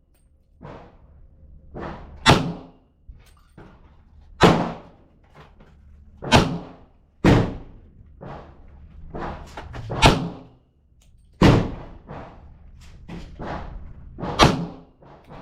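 Handgun shots on an outdoor range: about seven loud single shots spaced one to three seconds apart, each with a short echo, and fainter shots in between.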